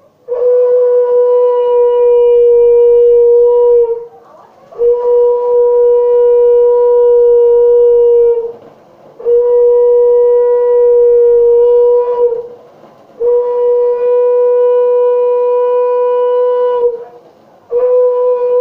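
Conch shell (shankha) blown in long, steady blasts of about four seconds each, with short breaks between them. There are four full blasts, and a fifth begins near the end.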